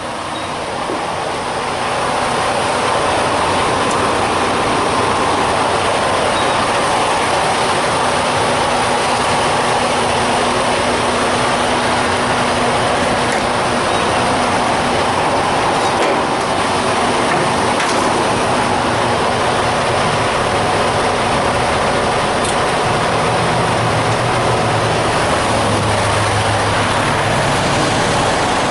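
Steady vehicle engine and road noise, heard as a loud even rumble and hiss that builds over the first couple of seconds and then holds level.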